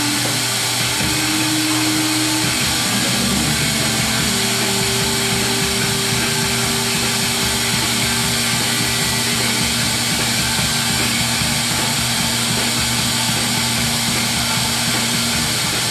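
Glassblowing bench torch burning with a steady hiss while a glass tube is turned in its flame. Faint held musical notes sound underneath.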